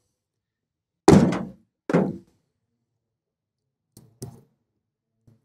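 Two dull thunks, the first about a second in and the louder, then a pair of faint clicks near four seconds: a clear braided plastic hose and its push-in connector being handled and pressed onto the nozzle of a stainless-plate HHO generator.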